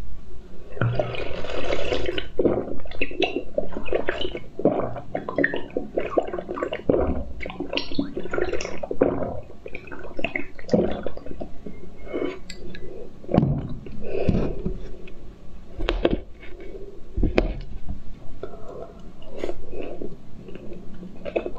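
Close-mic slurping and gulping of a blue drink sucked through the spout of a bird-shaped glass: many short, sharp wet mouth sounds and swallows, with surges of slurping, the longest about a second in.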